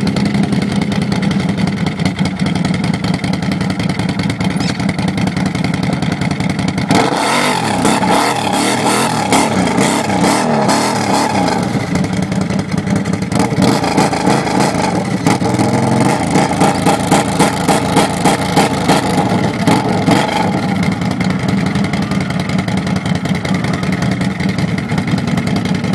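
ATV engine running and revving, the pitch rising and falling, with an abrupt change in the sound about seven seconds in.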